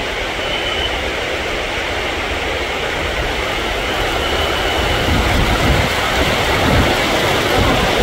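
JR 205 electric commuter train rolling in beside the platform through heavy rain. The rain's steady hiss runs throughout, and the train's rumble grows louder over the last few seconds as it draws close.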